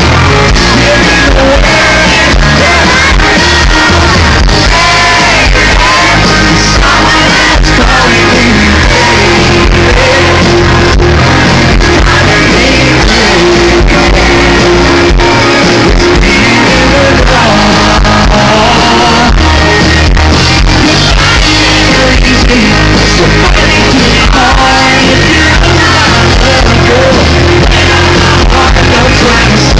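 Live country-rock band playing loud with a lead singer, and the crowd shouting along.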